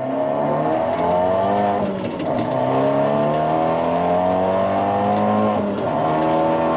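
Fiat 124 Spider Abarth's turbocharged four-cylinder engine, with a downpipe, high-flow catalytic converter and no muffler or resonator, heard from inside the cabin as the car accelerates hard. The pitch climbs, drops at an upshift about two seconds in, climbs again, and drops at a second upshift near the end.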